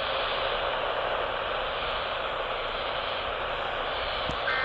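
Steady radio static hiss between transmissions. Near the end a short two-tone warbling data burst from an Emergency Alert System (EAS) encoder starts, the first of the end-of-message bursts that close the alert.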